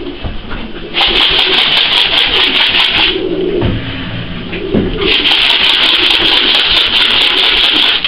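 Racing pigeons cooing, under two loud stretches of rushing noise, about two and three seconds long.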